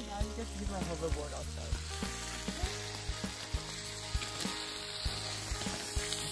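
Food sizzling on a grill, a steady hiss with scattered crackles and pops.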